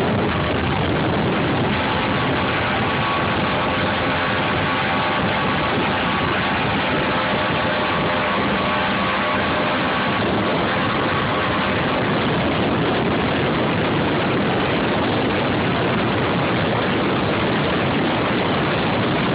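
32-foot Midnight Express powerboat running wide open: a loud, steady drone of its engines at full throttle, mixed with the rush of wind and water.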